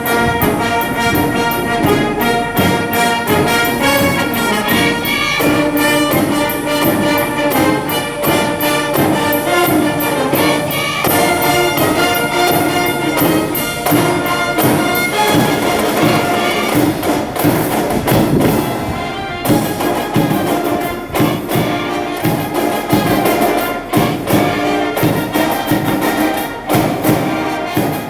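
High school brass band playing a baseball cheering song live: trumpets and other brass over a quick, steady drum beat, with a brief break about two-thirds of the way through.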